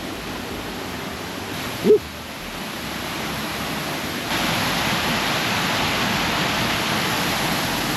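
Waterfall: steady rushing of falling water that turns abruptly louder and hissier about four seconds in. A brief rising tone cuts through just before two seconds in.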